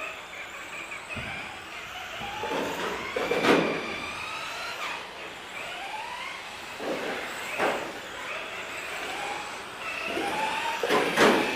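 RC touring car's motor and drivetrain whining, rising and falling in pitch as it speeds up and slows down, with a few short louder noisy bursts, the loudest near the end.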